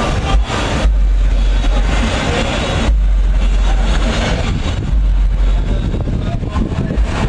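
Enduro motorcycle engines running on a hill climb, heard as a dense mechanical drone, with wind buffeting the microphone in gusts.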